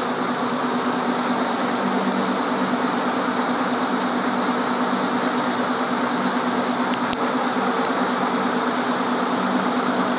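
Fire truck idling in a steady mechanical hum, with a couple of faint clicks about seven seconds in.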